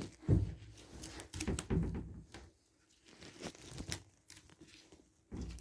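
Irregular tearing, scraping and crinkling as fibrous debris wound around a lift pump's impeller is pulled away by hand. It is louder in the first two seconds, with a short burst again near the end.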